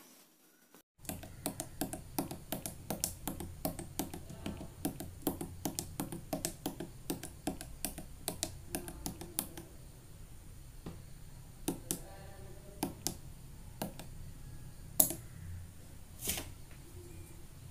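Small tactile push-button switches on a perfboard keypad being pressed, a quick run of sharp little clicks starting about a second in, then sparser single clicks.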